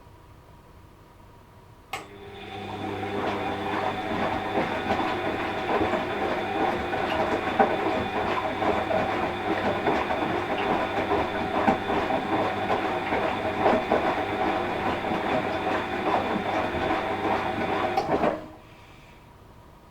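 Washing machine motor starting with a click about two seconds in and turning the drum for about sixteen seconds, a steady motor whine over dense rattling, then stopping abruptly back to a faint hum.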